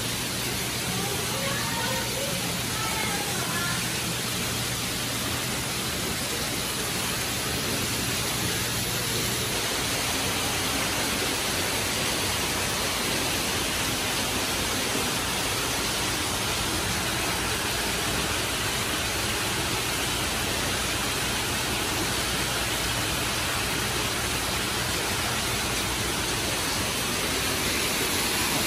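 Steady rush of falling water from a small waterfall in a rock exhibit.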